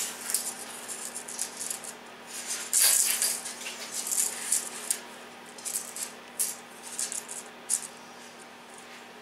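Steel tape measure blade being pulled out and slid across an MDF table top to check it corner to corner: scraping and rattling in several short bouts, with a few sharp clicks in the second half.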